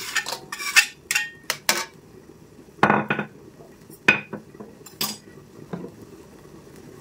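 Metal wok spatula scraping and clinking against a plate as food is pushed off it, a string of quick clinks, then a longer clatter about three seconds in and a few single knocks as the plate and spatula are put down on a tiled counter.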